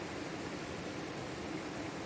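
Steady, even rush of water from a waterfall pouring into a river pool.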